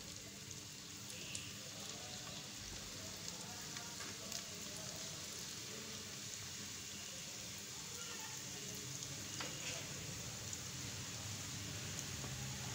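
Chicken spring rolls deep-frying in hot ghee: a steady sizzle with scattered small crackles and pops.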